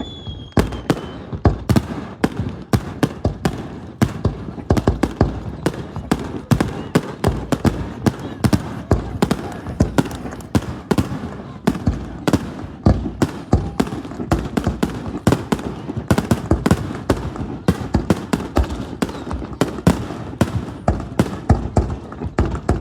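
Fireworks finale: a rapid, continuous barrage of sharp bangs and crackles, several a second, with a falling whistle from a shell that fades out about a second in.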